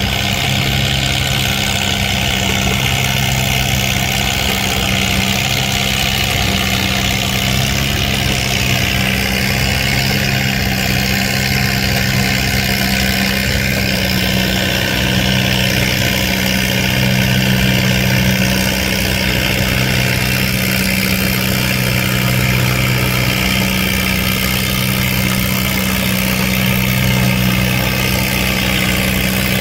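Antique farm tractor engine running steadily at an unchanging pitch.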